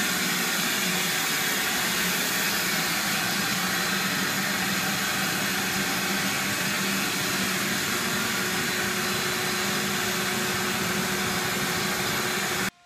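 Dust-free vacuum sander working over a plastered ceiling: a steady, loud rush of suction with a low hum, as the ceiling is lightly sanded before painting. It cuts off abruptly near the end.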